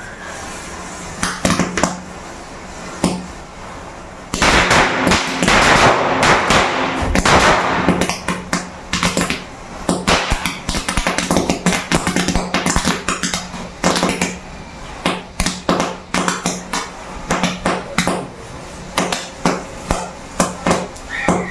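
A matchstick chain and firecrackers igniting: a few early clicks, then about four seconds of dense crackling fizz, followed by a long irregular run of sharp pops and cracks.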